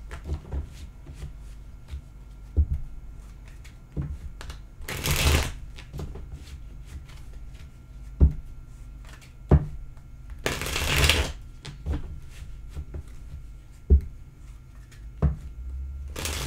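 A deck of tarot cards being shuffled by hand: three bursts of shuffling, about five to six seconds apart, with a few short knocks of the deck on the table in between.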